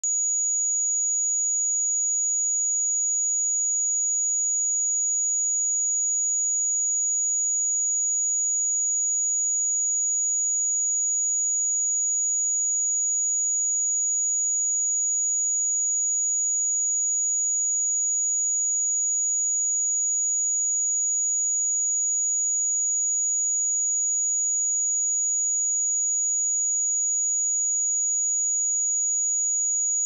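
A pure electronic sine-wave test tone at 6807 Hz, a single high-pitched whistle held perfectly steady at a constant level.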